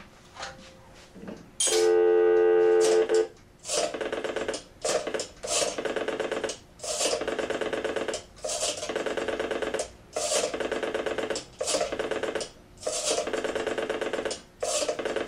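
A steady dial tone sounds for about a second and a half, then cuts off as the payphone's rotary dial is worked. Digit follows digit, each a buzzing, clicking run lasting about a second, with short gaps between them.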